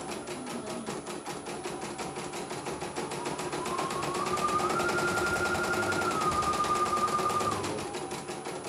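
CNY E900 computerized embroidery machine stitching a design, its needle going up and down in a rapid, even clatter. A motor whine rises in pitch a few seconds in, holds, and drops away near the end as the stitching speeds up and slows.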